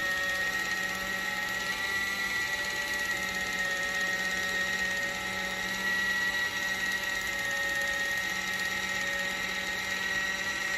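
Kitchen Mama battery-powered handheld electric can opener running as it cuts its way around the rim of a can, its small motor giving a steady whine.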